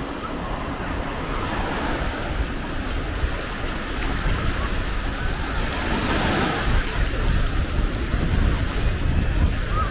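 Small sea waves breaking and washing up on a sandy shore in a steady surf, with one fuller wash about six seconds in. Wind rumbles on the microphone throughout.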